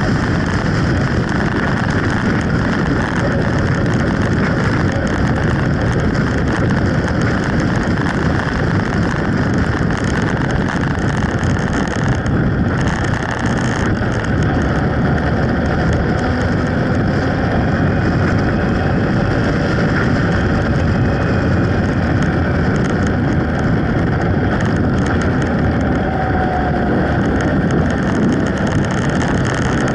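Steady wind rush over the microphone of a camera on a moving motorcycle, with the motorcycle's engine and tyre noise beneath it and faint rises and falls in engine pitch.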